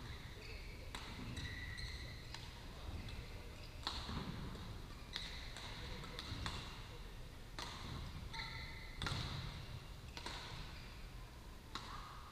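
Badminton rackets striking shuttlecocks across several courts at once: irregular sharp cracks about every second, echoing in a large sports hall, with short high squeaks and distant voices.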